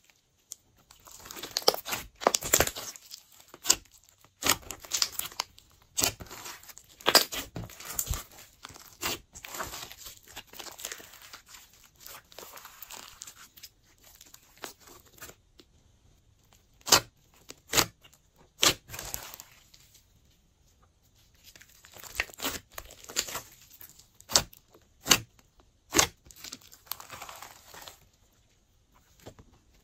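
Glossy slime being squeezed, stretched and folded by hand: soft wet squishing broken by many sharp, irregular pops and clicks, with a few short pauses.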